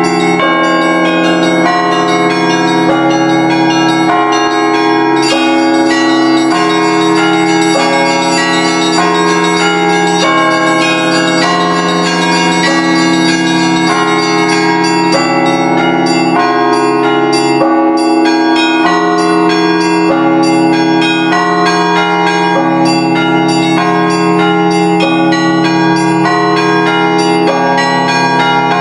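Russian Orthodox church bells rung together in a continuous peal. Small bells are struck in quick, shifting patterns over the steady ringing of larger bells.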